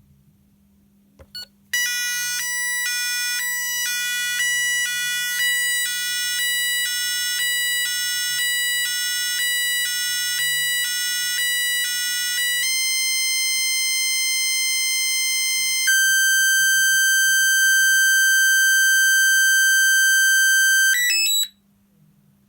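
Intruder alarm sounder playing electronic tones: a two-tone warble switching about every half second, then a steady tone for about three seconds, then a higher steady tone for about five seconds, cutting off abruptly near the end.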